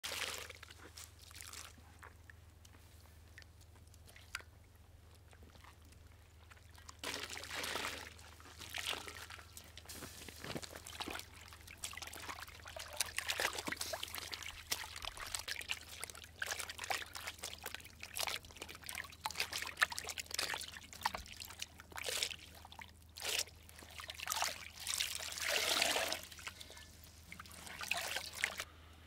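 Wet dyed cloth being lifted and rinsed in a steel basin of water, with water pouring and dripping off it and sloshing in irregular bursts.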